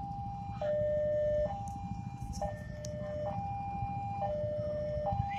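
Railway level-crossing warning alarm sounding a steady alternating two-tone, high then low, each tone lasting about a second, the signal that a train is approaching and the crossing is closed. A low rumble of idling motorbike engines runs underneath.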